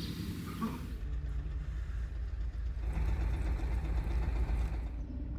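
Vehicle engine idling: a steady low rumble. The rest of the sound changes abruptly about a second in and again near the end.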